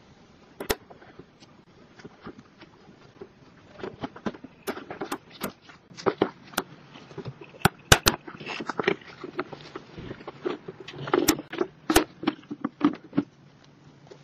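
Honda Innova's plastic air-box cover being handled and fitted back over the air filter: a few scattered clicks at first, then a busy run of sharp plastic clicks, knocks and scrapes, thinning out near the end.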